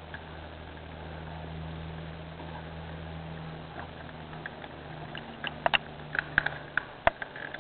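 Small clicks and taps of hands working wires onto an alarm keypad's terminals, clustered in the last two seconds with one sharp click about seven seconds in, over a steady low hum.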